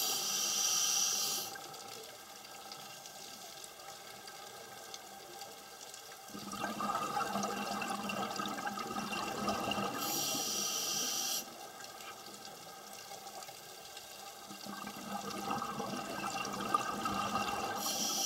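Scuba regulator breathing underwater: three bursts of exhaled bubbles, about eight to nine seconds apart, with a quieter hiss between them.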